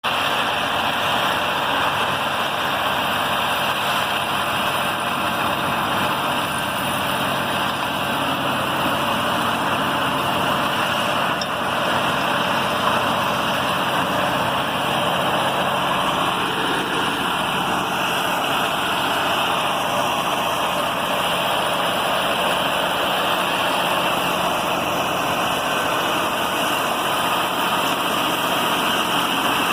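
Bulldozer's diesel engine running steadily under a dense mechanical noise.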